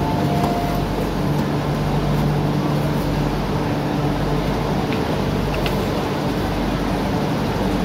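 A two-tone electronic chime alternates and stops just under a second in, then the steady low hum of a stationary CRRC Qingdao Sifang Q-train EMU carries on inside the car with its doors open to the platform.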